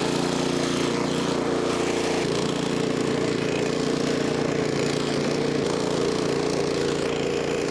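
Electric power tool motor running steadily, its tone changing about two seconds in.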